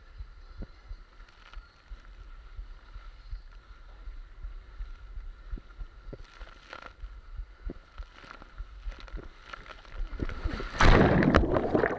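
Ride down a plastic water slide: low rumbling and scattered small knocks of a body sliding over the chute, then a loud rush and splash of water near the end as the rider hits the water.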